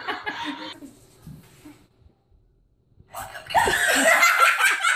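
Brief laughter trails off, then after a short near-silent gap a young girl bursts into loud, high squeals and laughter about three and a half seconds in.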